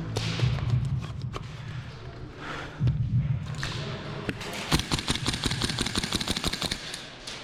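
Gas blowback airsoft rifle (VFC BCM MCMR 11.5) firing a rapid string of shots, its bolt cycling with each one, for about two and a half seconds beginning a little past the middle.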